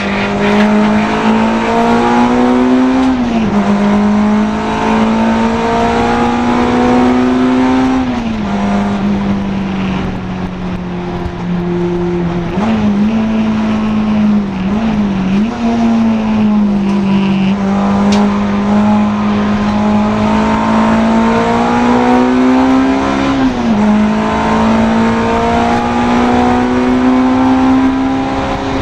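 Honda Integra DC2 race car's four-cylinder engine under hard acceleration on track. The revs climb slowly and drop sharply at each gear change, about five times, with a quick rise and dips near the middle as it changes down.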